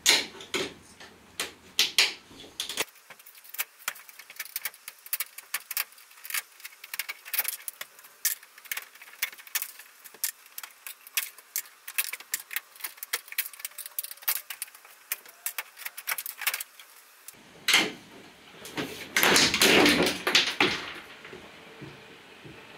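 Plastic push-pin trim clips being prised out of a van's factory side-wall panel: a long run of sharp clicks and ticks. About eighteen seconds in comes a louder scraping rustle as the panel is pulled free of the wall.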